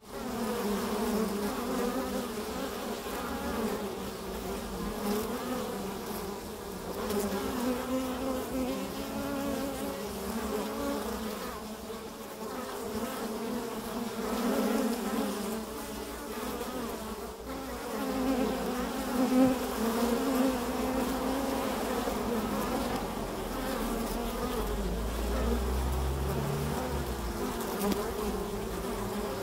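Carniolan honey bees buzzing at a hive entrance as foragers fly in and out, many wingbeat hums overlapping and wavering in pitch as single bees pass close.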